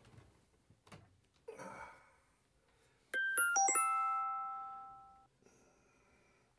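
A short electronic chime: about five quick bell-like notes, the last ones ringing on and fading away over about two seconds.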